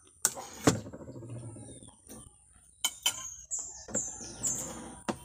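Eating by hand from a plate: a sharp clink near the start, then clicks and rustling as food is picked up. Three short falling bird chirps come in the second half.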